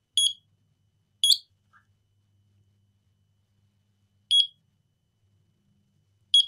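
Raymarine ST2000+ autopilot's piezo buzzer giving four short, high beeps at uneven intervals while the unit is powered on the bench.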